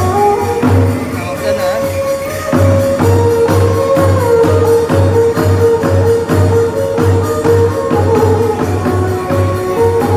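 Khmer ngũ âm (pinpeat) ensemble music: a drum beating about twice a second under a long, sliding melody line, with quick, sharp percussion strokes throughout.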